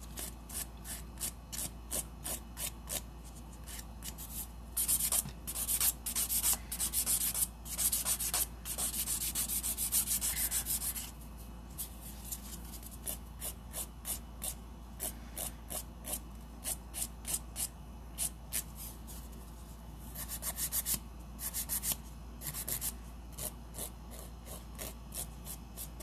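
A hand nail file rasping across an acrylic nail in quick back-and-forth strokes, about two or three a second, with a few spells of faster, continuous filing. The nail's sides are being thinned and shaped into an almond.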